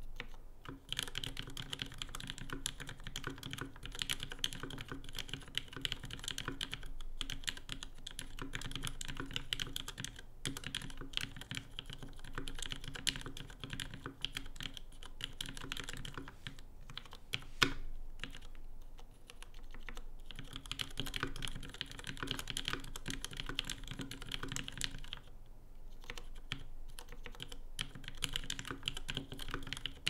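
Continuous typing on a Tokyo 60 60% mechanical keyboard fitted with lubed Cherry MX Black linear switches on 63.5 g Sprit springs: a dense, uneven patter of key strokes with brief pauses and one louder clack a little past halfway.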